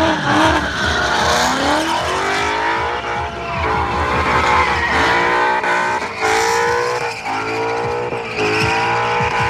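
Ford Mustangs drifting: engines revving hard, their pitch rising and falling over and over, with the tyres squealing and skidding as they spin.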